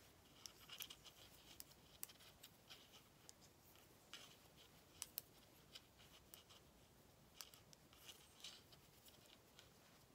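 Faint, irregular clicks and scrapes of knitting needles working cotton yarn, stitch by stitch.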